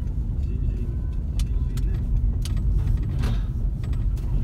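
Car being driven, heard from inside the cabin: a steady low rumble of engine and road noise, with a few faint clicks.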